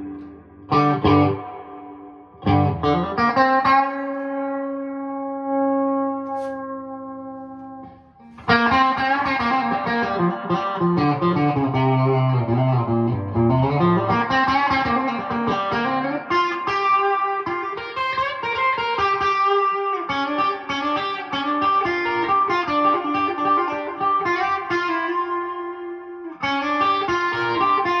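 Electric guitar played through a Princeton Reverb clone amplifier with its spring reverb set to about 4. A few short chords open it, then one chord is left to ring out for several seconds, and from about eight seconds in there is continuous single-note and chord playing.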